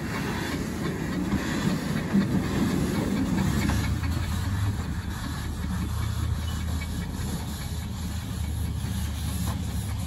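Miniature steam locomotive pulling away, steam hissing from its cylinders. A low steady rumble sets in about four seconds in.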